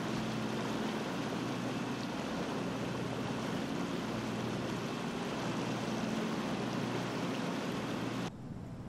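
A boat's engine running steadily under a wash of water and wind noise. The sound drops off suddenly near the end.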